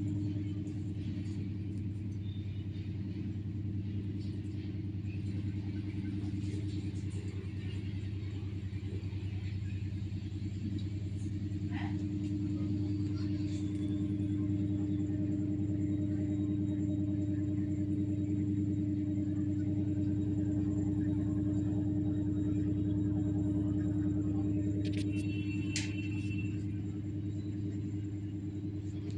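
Samsung WA80F10B3B top-load washing machine spinning in its Super Speed mode, which goes up to 700 RPM. It makes a steady motor hum over a low drum rumble.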